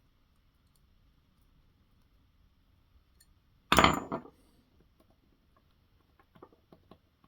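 A sudden hard clatter of small metal parts or a tool set down on a workbench, about halfway through, with a brief metallic ring; a few light clicks of handling follow near the end.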